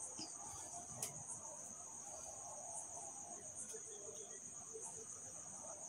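Tailor's shears cutting through blouse lining fabric, with faint snips and cloth rustle, under a steady high-pitched insect-like trill.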